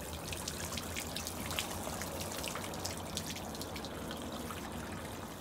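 Water spraying from a hand-held wand tip onto wet stone patio tile and splashing along the grout lines: a steady hiss with many small splashes. It is a water test of the tile grout to find where rain leaks through.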